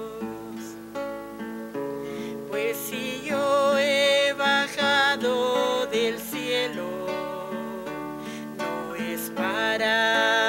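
Acoustic guitar strummed in steady chords under a woman singing a slow hymn, her voice wavering with vibrato on held notes.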